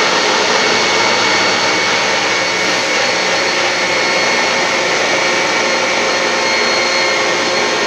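Countertop electric blender running steadily with a loud motor whine as it blends a liquid mixture in its jar.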